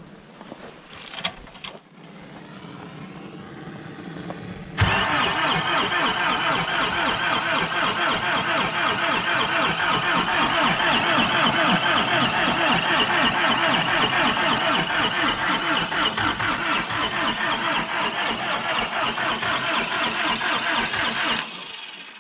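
Electric starter cranking an old tractor's cold diesel engine, a fast, even chugging that starts suddenly about five seconds in and stops abruptly near the end. It is a freezing cold start, aided by a blowtorch heating the intake.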